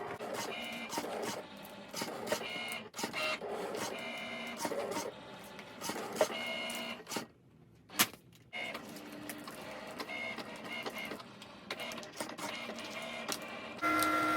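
Cricut cutting machine running a cut through a thin plastic chopping-mat sheet: its motors whine in short, changing tones with clicks as the carriage and blade move back and forth. The motors go quiet for about a second around the middle, and a steadier whine starts near the end.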